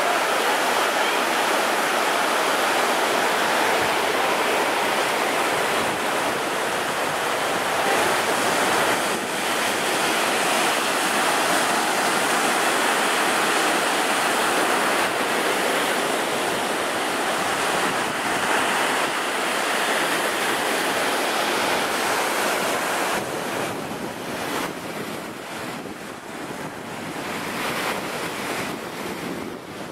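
Rushing water from river rapids, then Lake Superior waves breaking on a sand beach in a steady wash, with wind gusting on the microphone. It gets quieter and more gusty in the last several seconds.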